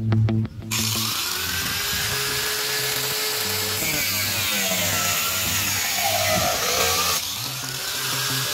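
Power tool running for about six seconds, starting and stopping abruptly, its pitch dipping and recovering partway through, over background music.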